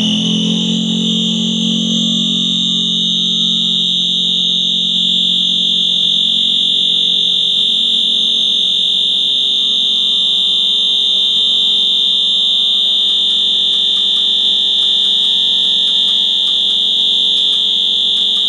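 A loud, steady, high-pitched alarm-like tone, held without a break or change in pitch. A lower hum under it fades out in the first second or two.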